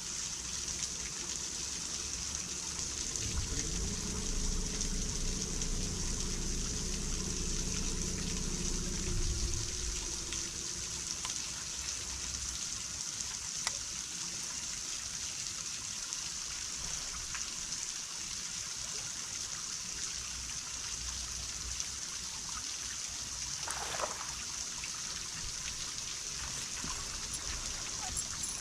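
Water trickling and lapping close by, a steady wash. A low motor hum runs for several seconds near the start and fades out, and there is a single light click near the end.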